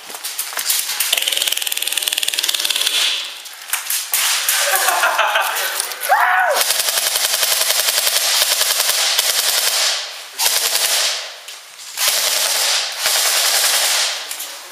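Airsoft rifles firing long fully automatic bursts, a rapid stream of shots, several bursts broken by short pauses.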